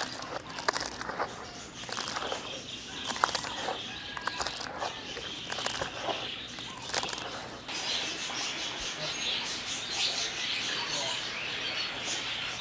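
Hands rustling and working wet duckweed and greens in a plastic basin, a run of short crackles and rustles. From about eight seconds in this gives way to a steadier outdoor background with birds chirping.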